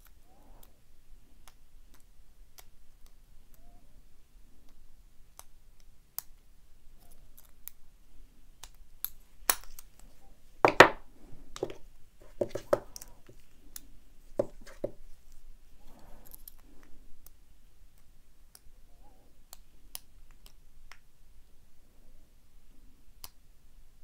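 Small metallic clicks and scratches of a lock pick and tension wrench working the pin tumblers of an American Lock 1100 padlock. About ten seconds in comes a cluster of louder sharp clacks and knocks as locks and tools are handled and set down, then quieter picking clicks resume.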